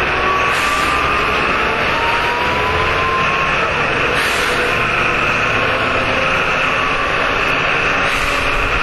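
Jelcz M121M city bus under way, heard from inside: steady engine and drivetrain noise with road rumble. A faint whine rises in pitch twice in the first few seconds.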